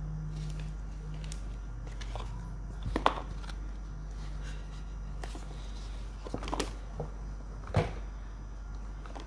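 Handling noise as a Nike Victori One foam slide sandal and its paper packing are turned over in the hands: a few light taps and rustles, over a steady low hum.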